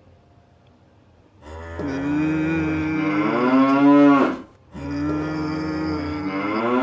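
Cow mooing: two long, drawn-out moos, the first beginning about a second and a half in and the second following after a short break.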